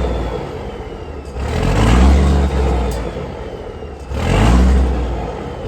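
Peterbilt 362 cabover's diesel engine revved twice, each time rising in pitch and falling back toward idle, a few seconds after it was started.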